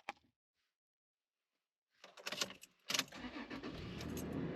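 After about two seconds of near silence, keys jangle and click at the ignition. Then, about three seconds in, the Toyota 4Runner's engine starts and settles into a steady idle.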